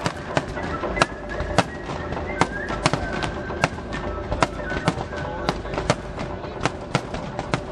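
Aerial firework shells bursting in quick succession, about two sharp bangs a second over a low rumble.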